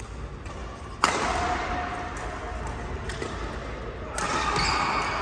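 Badminton hall sounds: a sharp hit about a second in, typical of a racket striking a shuttlecock, ringing on in the large hall. A louder stretch of court noise follows near the end.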